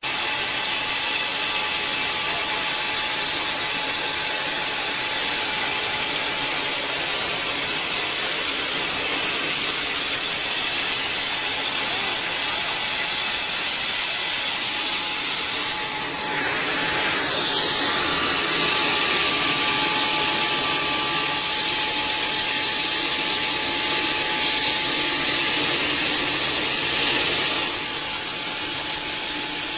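Pneumatic grain conveyor running: a loud, steady rush of air with a steady high whine over it, shifting in tone about sixteen seconds in and again near the end.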